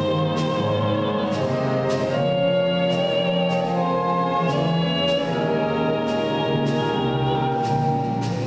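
A soprano sings held notes with vibrato over an orchestra with cellos, in a classical, operatic style.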